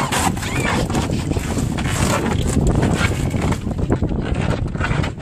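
Wind buffeting the microphone aboard a boat, a loud, uneven gusting noise with the boat's own sound underneath.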